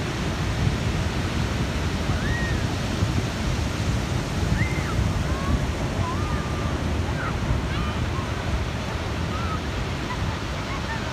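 Ocean surf breaking and washing up the beach as a steady rushing noise, with wind buffeting the microphone. Faint, short, high calls come through now and then from about two seconds in.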